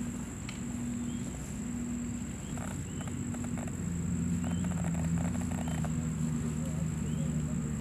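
Woodland ambience: a steady high-pitched insect drone over a low hum, with a few faint clicks and rustles.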